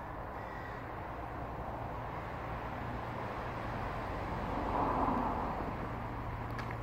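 Steady low outdoor rumble that swells for about a second midway, with a crow cawing faintly near the start.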